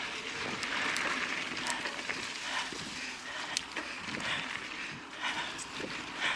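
A mountain biker breathing hard, about a breath a second, with sharp clicks and rattles from the bike over the trail.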